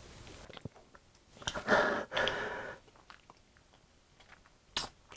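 Close-microphone mouth sounds from an eater who has just swallowed a mouthful of iced drink: small wet clicks of swallowing and chewing, with one breathy sound of about a second, about two seconds in.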